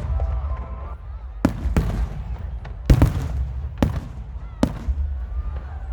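Fireworks going off: about six sharp bangs at uneven intervals, two of them close together near the middle, over a continuous low rumble.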